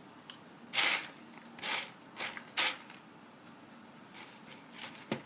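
Popcorn being chewed: a few short crunches in the first three seconds, then fainter ones and a sharp click near the end.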